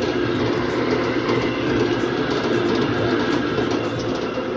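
Metal-shop machinery running steadily, a dense mechanical rumble and rattle.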